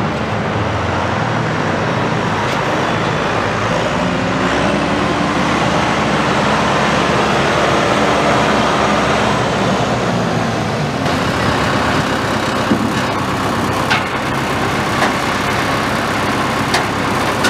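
The 2003 John Deere 6403's four-cylinder turbo diesel runs steadily as the tractor drives across gravel. About 11 seconds in the sound changes, and a few sharp clicks follow.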